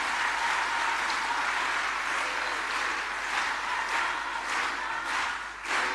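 Audience applause from a crowd in a hall, a dense steady clatter of many hands that, in the second half, starts falling into rhythmic in-time clapping, roughly three claps every two seconds.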